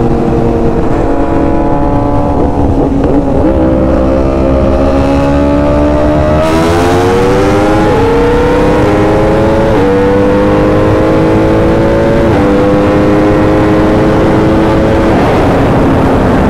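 Sport bike engine at full throttle, its pitch climbing steadily and dropping back slightly at each of three quick upshifts in the second half, then fading out near the end.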